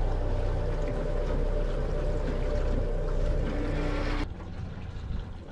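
Small motorboat underway: steady engine and rushing water and wind noise. About four seconds in it gives way abruptly to quieter water lapping.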